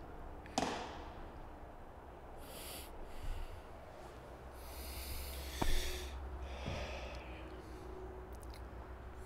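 Baseball infield drill: a sharp crack of a baseball about half a second in and another, louder one near the middle, with a softer knock soon after. Short breathy rushes of noise come and go between them over a low steady rumble.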